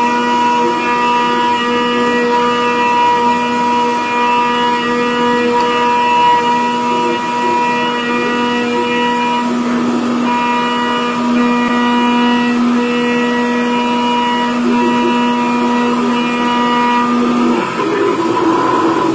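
CNC lathe boring the inside of a metal cylinder with a boring bar: a steady pitched machine whine with many overtones, which breaks off shortly before the end as the cut changes.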